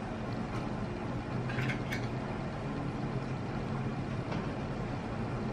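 Steady low background hum in a quiet room, with a faint short sound about two seconds in.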